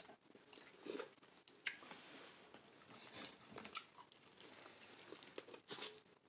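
Eating sounds of boiled lobster claws: shell and meat picked apart by hand, then biting and chewing. A handful of sharp clicks and crackles stand out, the loudest about a second in and near the end.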